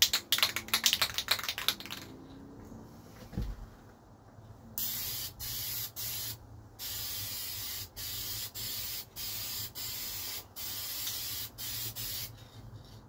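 Aerosol spray paint can shaken hard, its mixing ball rattling, for the first couple of seconds. Then, from about five seconds in, paint hissing out of the nozzle in a string of short spray bursts with brief breaks between passes.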